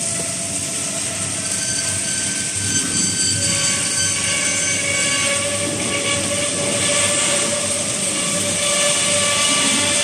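Steady machinery noise: a dense hiss with several high whining tones that come and go.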